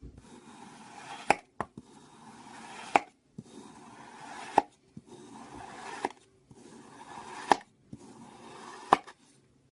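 Slime being worked by hand in a repeating rhythm: a rising squelchy rustle that ends in a sharp snap, six times, about every one and a half seconds.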